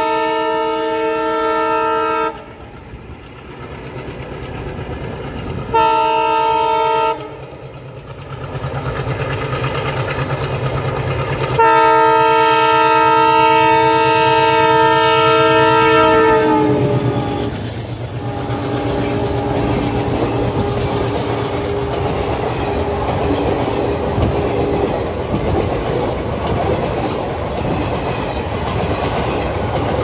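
Indian Railways diesel locomotive horn: a blast ending about two seconds in, a short blast around six seconds, and a long blast from about twelve seconds that drops in pitch as the locomotive passes. The engine and coaches then rumble and clatter by over the rail joints, with a fainter, lower horn note for a few seconds.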